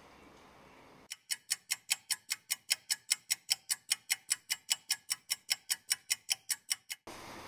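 Clock ticking sound effect: fast, even ticks at about five a second, starting about a second in and cutting off abruptly near the end.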